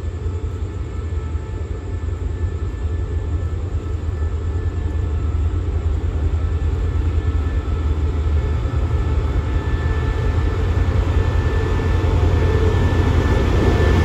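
SRT QSY-class diesel-electric locomotive drawing a passenger train into the station, its engine drone growing steadily louder as it approaches and comes alongside.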